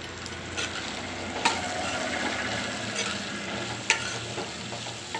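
Cubed potatoes and cauliflower frying in oil in a steel kadhai, stirred with a steel spoon. The spoon clinks sharply against the pan twice, about one and a half and four seconds in.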